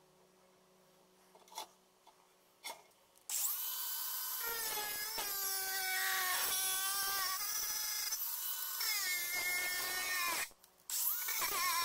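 A cordless angle grinder spins up about three seconds in and cuts into a metal frying pan held in a vise. Its whine dips in pitch again and again as the disc bites into the metal. Near the end it stops briefly and starts up again.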